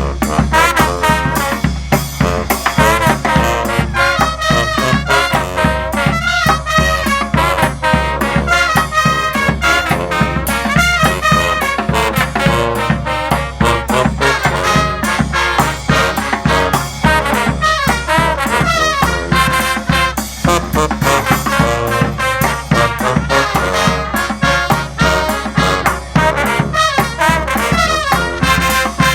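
Brass band playing live: trumpets and trombones over percussion, with a steady swinging beat.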